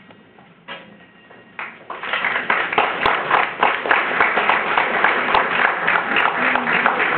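Audience applause: a few scattered claps, then the crowd breaks into steady clapping about two seconds in.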